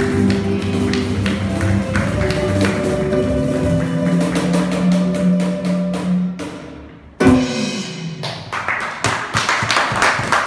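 A small Latin band of guitar, upright bass and cajón plays the close of a song, with a steady tapping beat on the cajón. The music dies away about seven seconds in, one sharp closing hit follows, then the listeners clap.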